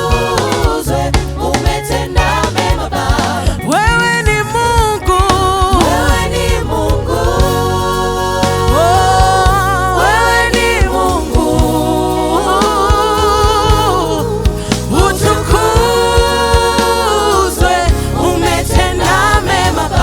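Live gospel worship music: singers holding long sung lines over a band with bass and drums.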